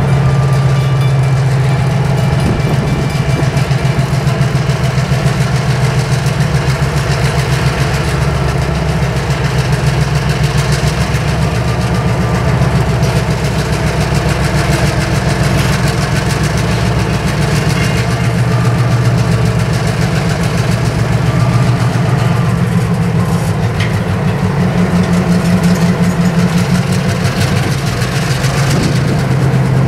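The diesel engine of an end-cab switcher locomotive running steadily at low throttle, a low, rapid, even throb.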